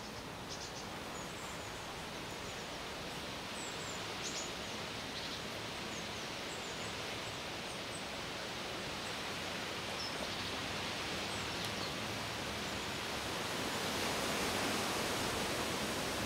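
Steady outdoor background hiss with a few faint, short bird chirps scattered through it; the hiss grows a little louder near the end.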